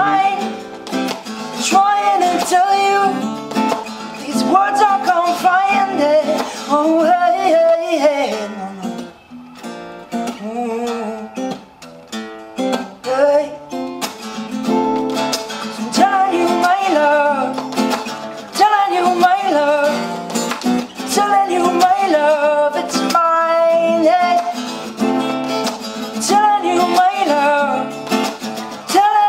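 Acoustic guitar music: a strummed acoustic guitar with a melody line over it, steady and full, dipping briefly around nine to twelve seconds in.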